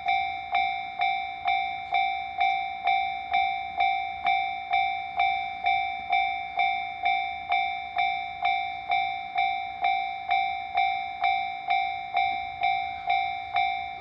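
Japanese railroad crossing warning bell ringing "kan-kan" in a steady, even rhythm of a little over two strikes a second, each ring fading before the next.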